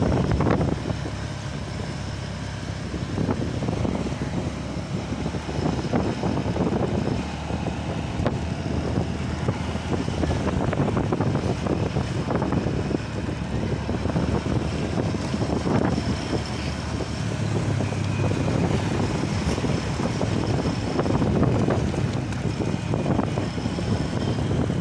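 A small motorcycle being ridden along a road: the engine runs steadily under a rush of wind buffeting the microphone.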